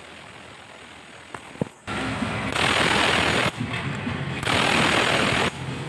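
Cordless impact wrench hammering on the 19 mm torque drive nut of a Honda Click 125 scooter, starting about two seconds in, with two louder hammering spells. The nut does not break loose.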